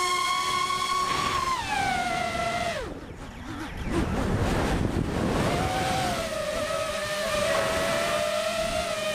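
Drone's electric motors and propellers whining, heard from the camera on board. The pitch holds high, then falls away about two seconds in as the motors slow, and drops out briefly under a rush of wind. The whine returns steady at a lower pitch near six seconds in.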